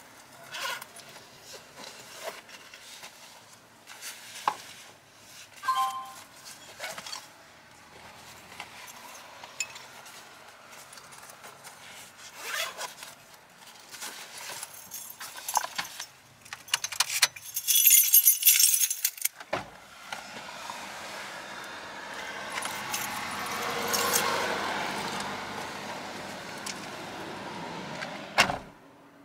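Scattered clicks and knocks, then a loud metallic jingling lasting about two seconds a little past the middle. A vehicle follows, swelling and fading over several seconds before the sound cuts off near the end.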